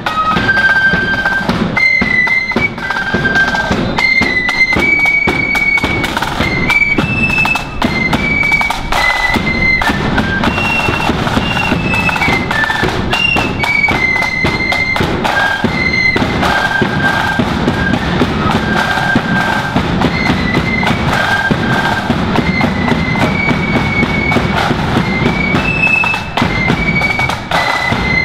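Marching flute band playing a tune in unison, the flutes carrying a high melody over a steady beat of drums.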